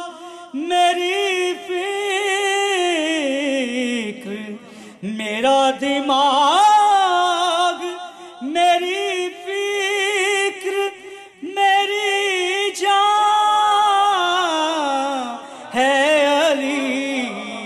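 A man singing a manqabat (devotional Urdu poem in praise of Ali) unaccompanied, about six long ornamented phrases with wavering held notes and sliding pitch, separated by short breaths.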